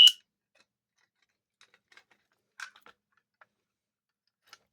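A System Sensor SpectrAlert Classic P2475RLZ fire alarm horn's last short blast cuts off right at the start. A few faint, scattered clicks and taps follow as the pull station is handled and reset.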